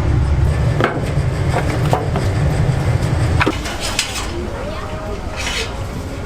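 Dishes and metal utensils clinking and clattering at intervals over a low rumble that stops about three and a half seconds in.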